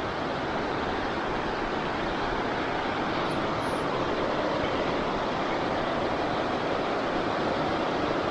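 Steady rushing of a fast-flowing river.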